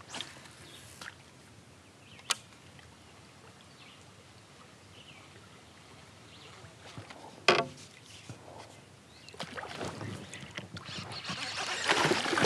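Faint open-water ambience with one sharp tap a couple of seconds in; near the end, water splashing builds and grows loud as a bass strikes a topwater frog lure close to the kayak.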